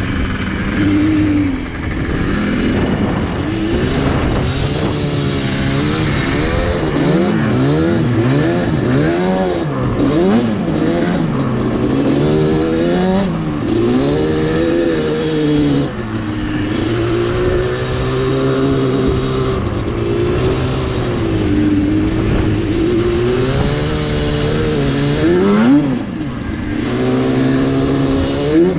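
Yamaha Banshee's twin-cylinder two-stroke engine being ridden, revving up and down through the gears over and over, then holding a steadier, wavering speed before revving up again near the end.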